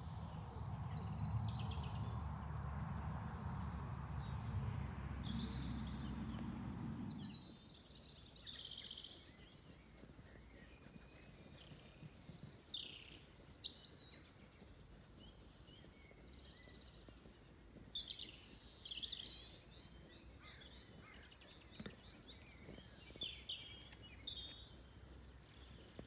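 Evening songbirds singing in scattered chirps and short phrases from several birds. A low rumbling noise covers roughly the first seven seconds and is the loudest sound, then stops abruptly.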